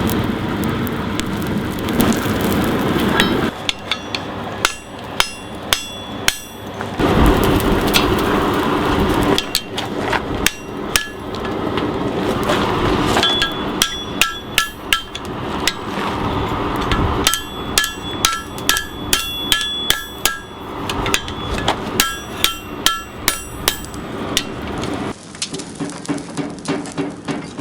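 Blacksmith's hammer striking metal in several quick runs of ringing blows, two or three a second. Between runs there is a steady rushing roar from the freshly lit coal forge.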